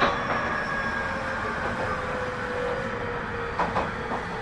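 Tobu 30000 series electric train running, its motor tones falling slowly in pitch as it slows. A couple of short knocks from the wheels about three and a half seconds in.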